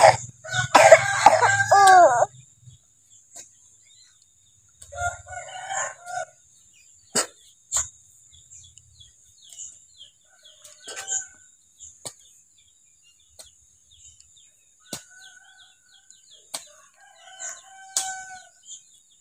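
A rooster crows loudly about a second in, followed by a shorter call around five seconds and scattered chicken clucks later, with a steady high insect drone and a few sharp knocks.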